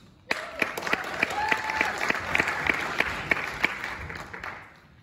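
Audience applauding, starting just after the start and dying away near the end.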